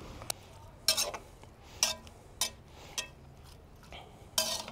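A metal fork stirring diced vegetables in a cast iron pot, scraping and clinking against the pot. The strokes come a few times, about half a second to a second apart, with the loudest near the end.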